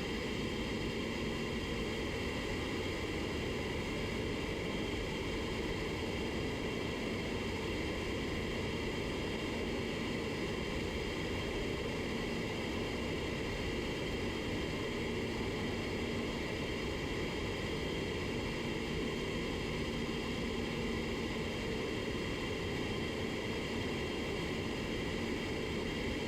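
Steady rush of air in an auto paint spray booth while base coat is being sprayed, even and unbroken, with a faint low hum that comes and goes.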